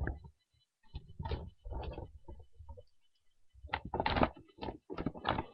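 Plastic action figure and display stand being handled close to the microphone: irregular knocks, rubs and clicks in two clusters, about a second in and again from about three and a half seconds.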